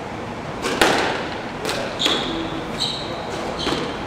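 Squash rally: a series of sharp cracks as the ball is struck by racquets and hits the walls, about one a second or faster, with short shoe squeaks on the wooden court floor and a hall-like echo.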